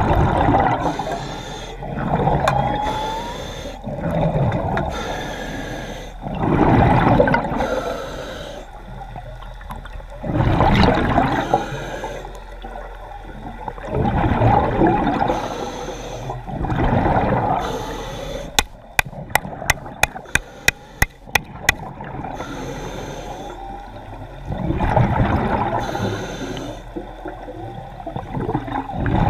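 A snorkeling diver breathing hard in and out through a snorkel, a loud, watery rush every few seconds. A little past two-thirds of the way through comes a quick run of about a dozen sharp clicks.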